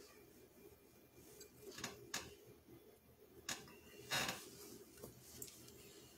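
Quiet room tone with a low steady hum, broken by a few faint clicks and knocks.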